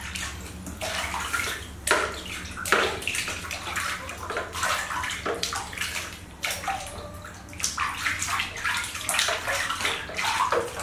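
Water splashing and sloshing in a plastic basin as hands scoop water over and scrub a baby monkey, in irregular splashes.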